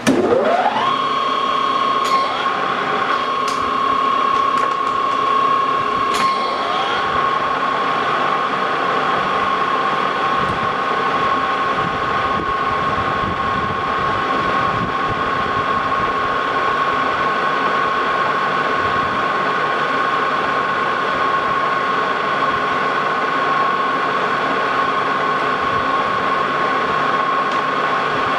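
Lodge & Shipley Model X 16-inch metal lathe spinning up with a rising gear whine, then running at a steady high whine while the tool turns a steel bolt blank down. A few sharp clicks come in the first several seconds.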